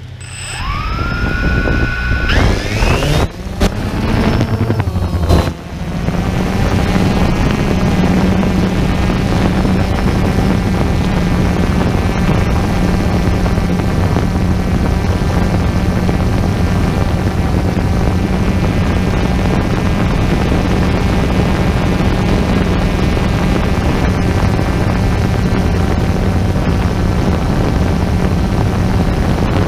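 Quadcopter drone's electric motors and propellers spinning up with a rising whine, with a few sharp knocks in the first seconds as it lifts off, then a steady, even propeller buzz as it flies.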